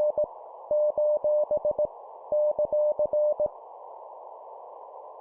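Morse code (CW) keyed at 17 words per minute as a steady mid-pitched tone in dots and dashes, sending punctuation marks over a steady band of static-like hiss. Two more characters are sent after the tail of one at the start, and from about halfway through only the hiss remains.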